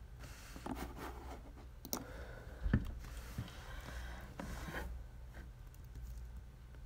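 Rustling and rubbing of a corduroy jacket sleeve close to the microphone, with a few scrapes and clicks and a dull knock a little under three seconds in.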